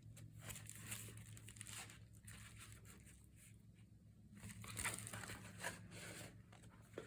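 Faint rustling and crinkling of paper as waxed thread is pulled through the punched holes of a notebook's paper pages while sewing the binding, with a few small ticks.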